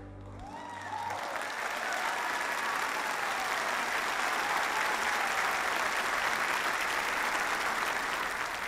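Large congregation applauding, with a few voices calling out, as the last held chord of the orchestra dies away in the first second.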